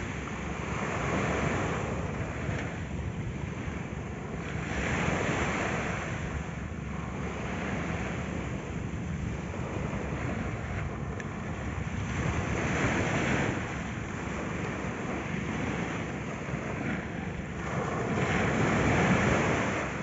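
Small sea waves breaking and washing up a sandy beach, swelling and fading every few seconds, with the loudest surge near the end.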